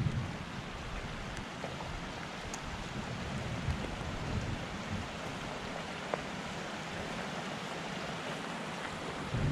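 Steady hiss of wind and rain under a mountain thunderstorm, with a few faint ticks and no thunder peal.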